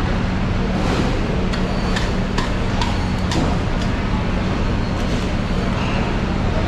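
Steady mechanical drone with a low, constant hum, broken by a few short, sharp clicks and knocks.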